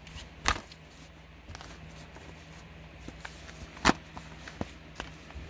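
Plastic Blu-ray cases clicking against each other as a stack of them is gathered in the hand: a sharp click about half a second in and a louder one a little before four seconds in, with a few light taps between.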